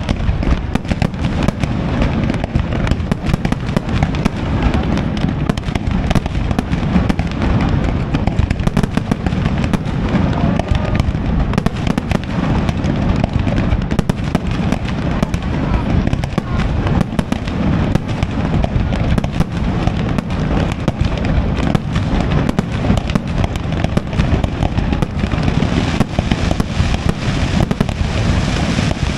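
Aerial fireworks display by Pirotecnia Valenciana: a dense, continuous run of shell bursts and crackling, with no break.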